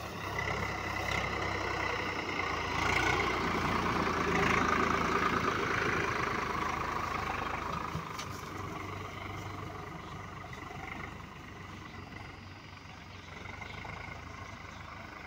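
Swaraj 744 FE 4×4 tractor's three-cylinder diesel engine running under load as it pulls a fully loaded paddy trolley. It is loudest about four to six seconds in as it passes close, then fades as it moves away.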